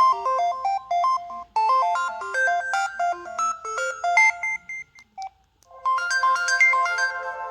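Preloaded ringtones on an LG 221C phone: a fast melody of short notes ends about four seconds in, and after a brief pause a different tune of longer held notes starts.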